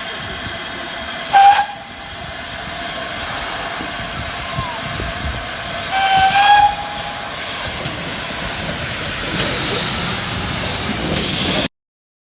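Steam hissing steadily from GWR Saint class 4-6-0 No. 2999 'Lady of Legend', with two short steam whistle blasts, one about a second and a half in and a slightly longer one about six seconds in. The hiss grows louder toward the end, and the sound cuts off suddenly near the end.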